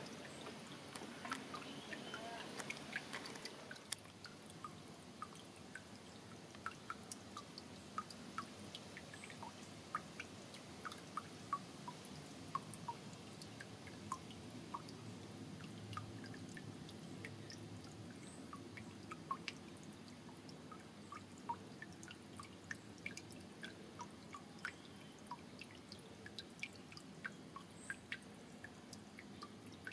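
Water dripping irregularly into a shallow pool, making small separate plinks, sometimes several a second, over a faint low wash of moving water.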